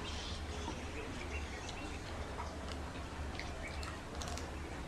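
Eating by hand: chewing and fingers working rice and fried fish, heard as small scattered clicks over a steady low hum.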